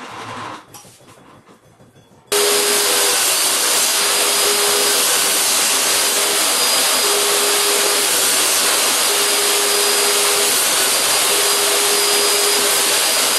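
Table saw running and cutting wood fed by a push block: a loud, steady rush with a faint hum that wavers and breaks up during the cut. It starts abruptly about two seconds in and cuts off just before the end.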